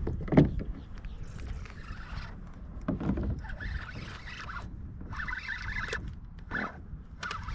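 Rod, reel and kayak handling noises while a hooked redfish is fought from a kayak: a sharp knock about half a second in, then patchy stretches of higher-pitched noise over a low rumble.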